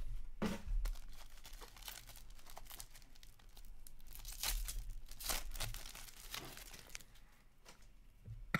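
Foil wrapper of an Upper Deck SP Game Used hockey card pack being torn open and crinkled by hand, a string of irregular rips and crinkles.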